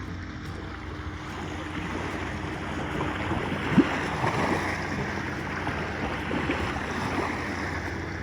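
Water splashing and lapping around a small kayak on the water, busier through the middle, with one sharper hit a little before four seconds in.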